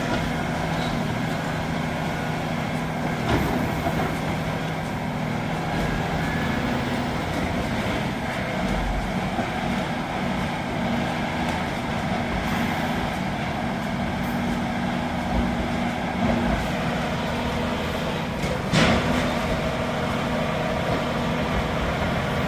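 Heavy diesel logging machine's engine running steadily, with two short knocks, about three seconds in and near nineteen seconds.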